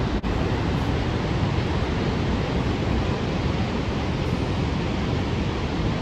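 Steady roar of the Horseshoe Falls at Niagara: a continuous rushing of water with a deep rumble underneath. It dips for an instant just after the start.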